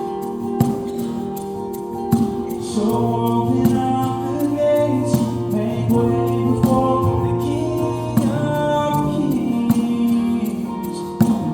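Music: a worship song, voices singing over a steady strummed accompaniment, with the singing coming in a couple of seconds in.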